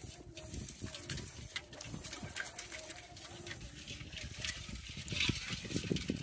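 Live prawns and small fish jumping and flicking in a pot of wet catch and water hyacinth, making irregular wet clicks, taps and patter, with the rustle of the net trap being shaken out over the pot. The tapping grows busier near the end.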